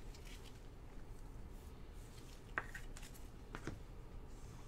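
Quiet room tone with light handling clicks of a hard plastic card holder in gloved hands: one sharp click about two and a half seconds in and a softer one about a second later.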